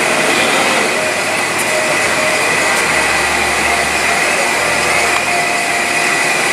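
Steady mechanical whirring drone with a high whine running through it. A deeper hum swells in about two seconds in and fades again near the end.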